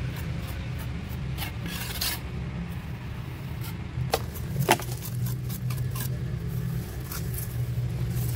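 Steel trowel scraping and tapping wet cement mortar along the rim of a cement planter, with two sharper clicks of the trowel about halfway through. A steady low hum lies underneath.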